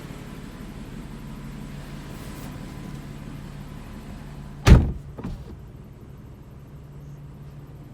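A car's steady low hum is broken a little past halfway by one loud, sharp thump and, half a second later, a smaller knock. This is the odd noise whose origin, inside or outside the car, is unknown.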